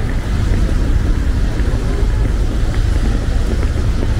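Passenger ferry under way: a steady low rumble mixed with wind buffeting the microphone.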